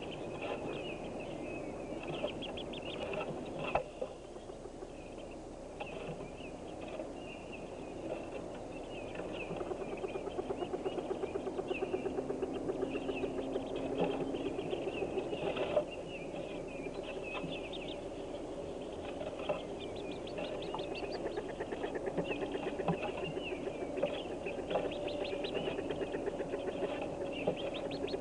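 Hooded merganser ducklings peeping continuously inside a wooden nest box, with a lower, rapidly pulsing call beneath that becomes louder about a third of the way in. A few sharp knocks sound against the box.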